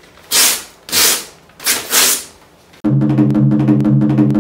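Three loud rasping rips like a sheet of paper being torn, each under a second long. About three seconds in, music with a steady drum beat starts abruptly.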